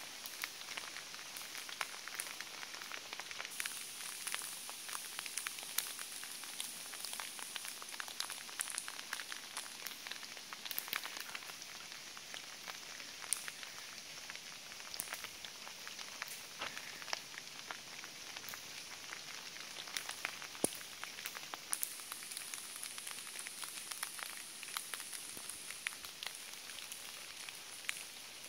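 Sleet falling at night, a steady patter of icy pellets ticking on the road, a wooden wall and roofs.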